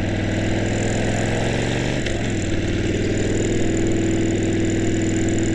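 Harley-Davidson V-twin motorcycle engine running under way, a steady stack of engine tones with a brief change in engine note about two seconds in. It is picked up by a lavalier mic tucked in the helmet padding under the visor.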